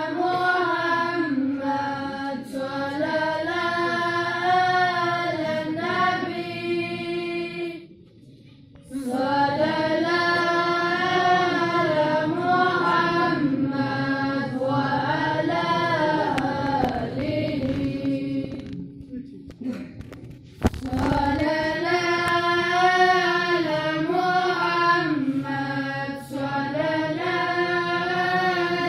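Group of young men chanting a Shia devotional tarana in unison through a microphone, with long held, gliding notes. The singing breaks off twice for about a second, and the second pause has a single sharp knock in it.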